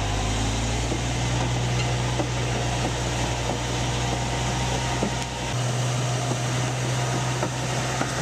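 Komatsu D475 bulldozer's diesel engine running with a steady low drone. Its note shifts about five and a half seconds in.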